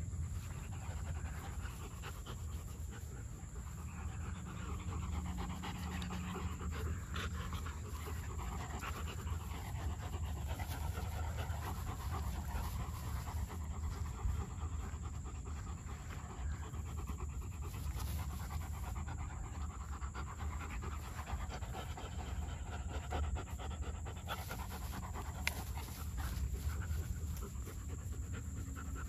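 Two German shepherds panting hard while tugging on a rope toy, over a steady low rumble.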